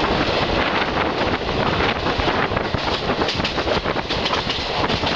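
Passenger train running at speed, heard from an open carriage window: a steady rumble of wheels on rails with a quick, uneven clatter of clacks.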